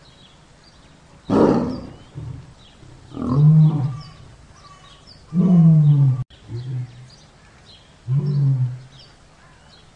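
Tiger roaring: four short roars, each under a second long, about two to three seconds apart.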